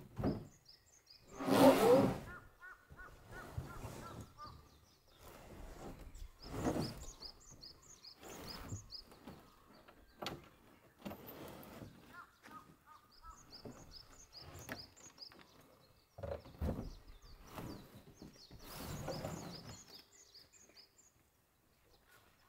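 Small birds chirping in quick runs of short, high notes, several times over, with scattered thumps and rustles; the loudest is a thud-like noise about two seconds in.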